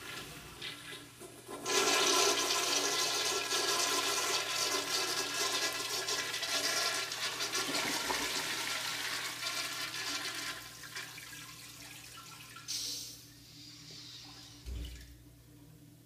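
An automatic flushometer flushing an American Standard Cadet toilet: a weak flow at first, then a loud rush of water about two seconds in that gradually fades from about ten seconds in. A short hiss follows as the flush ends, then a dull thump near the end.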